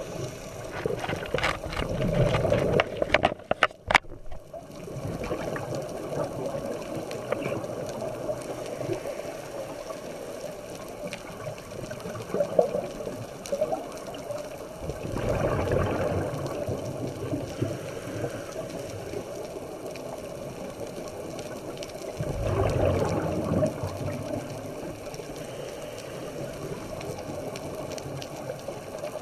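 Underwater sound through a camera housing: scuba regulator exhalations, rushing bubble bursts of about two seconds, three times, over a steady underwater hum. A few sharp clicks come about three to four seconds in.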